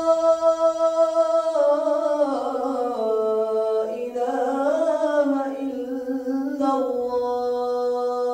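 A muezzin's voice chanting the adhan, drawing one phrase out in a long melodic line that slides down, rises again about halfway, then settles and fades out at the end.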